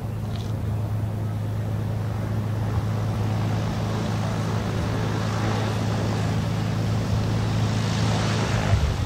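Piston engine and propeller of a single-engine Cessna light aircraft running at taxi power: a steady low drone. A hiss grows louder over the second half as the plane taxis up and turns past.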